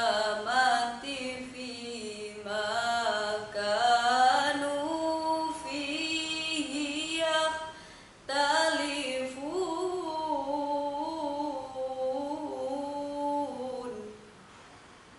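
A young woman's solo voice reciting the Quran in the melodic tilawah style, with long held, gliding and ornamented notes. She breaks off for a breath about eight seconds in, and the phrase ends about a second before the end.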